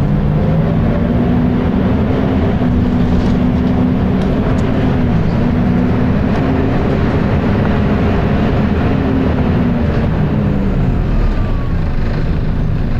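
Volvo B10BLE bus's diesel engine running with its very loud cooling fan. It makes a steady, loud drone whose pitch shifts up and down a few times as the engine revs change.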